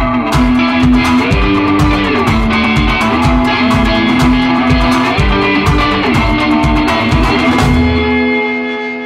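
Rock music with guitar over a steady beat. Near the end the beat drops out, leaving a held chord ringing.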